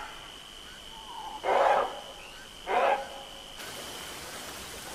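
Two short, rasping animal calls about a second apart, over a thin steady high tone.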